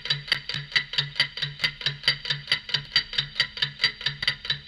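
Clock ticking: fast, even ticks, about four a second, each with a low knock beneath it.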